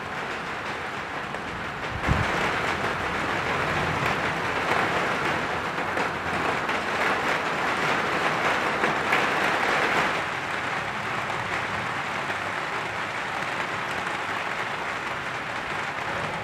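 Steady rain falling, with a sudden thunderclap about two seconds in; the rain and low rumble stay louder until about ten seconds in, then ease back.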